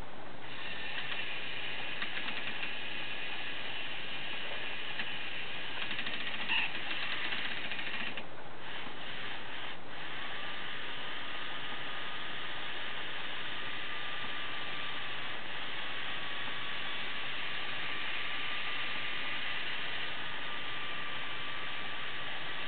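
K'nex toy electric motor running steadily with a high whine, winding the string that raises the crane's boom; the motor is geared for speed rather than torque, so its plastic gears grind and slip under the load. A short run of gear clicks comes about eight seconds in, and a lower steady tone joins about ten seconds in.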